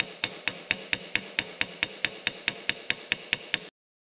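Small brass-faced hammer tapping rapidly and evenly on a metal part of the Christen drill grinder's head, about four and a half light metallic taps a second. It cuts off abruptly near the end.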